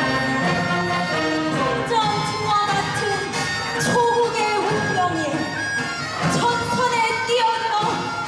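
Live performance of a Korean traditional–Western fusion piece: singing over a military wind band's accompaniment, the voice sliding and wavering between sustained notes.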